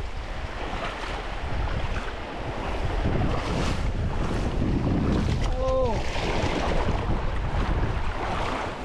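Strong wind buffeting the microphone over the wash of surf on a rocky shore. About two-thirds of the way through comes one short cry that falls in pitch.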